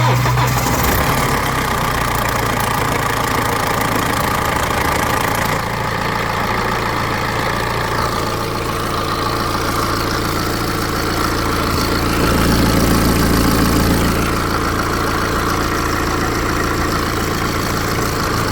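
BMW N47 2.0-litre four-cylinder diesel engine starting and settling into idle. A timing chain rattle is heard for about the first five seconds, then fades into a steady idle. The rattle comes from a worn upper timing chain tensioner that is not taking up chain slack on startup.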